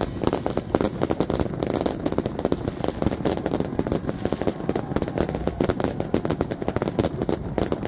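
Fireworks and firecrackers going off all around: a continuous, rapid crackle of many overlapping sharp bangs.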